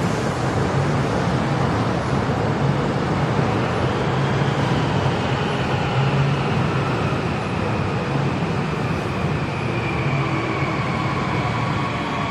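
Steady running rumble of a moving vehicle, with no breaks or sudden events.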